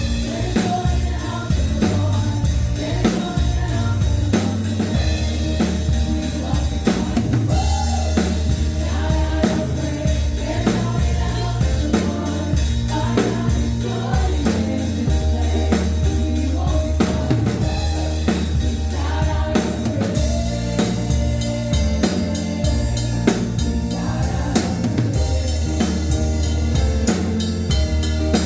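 Live gospel music with singing, a drum kit keeping a steady beat and a heavy bass line.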